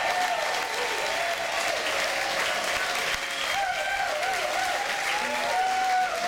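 Audience applauding, with voices calling out over the clapping.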